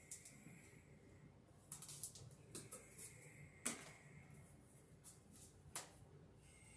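Faint scattered clicks of a hand tool, pliers or wire strippers, working electrical cable wires at a switch box, against near silence. The sharpest click comes about halfway through.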